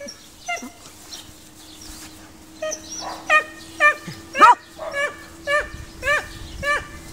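A dog barking in short, quick barks: two near the start, then an even run of about two barks a second from about two and a half seconds in.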